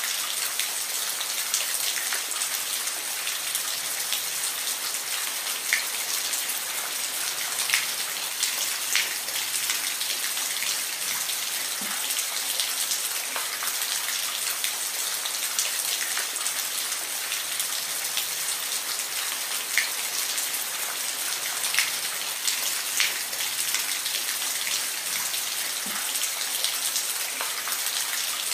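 Steady rain falling, a dense hiss with individual drops ticking and splashing on a surface here and there.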